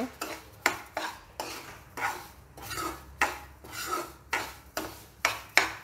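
Metal spoon scraping and clinking against a kadhai while stirring semolina roasting in ghee, in repeated short strokes about two to three a second.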